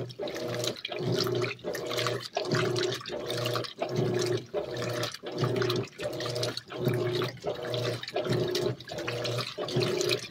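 Electrolux LAC12 top-load washing machine agitating a full load in water: the motor hums in steady strokes about two-thirds of a second long, with a short break each time the agitator reverses, over water sloshing and splashing.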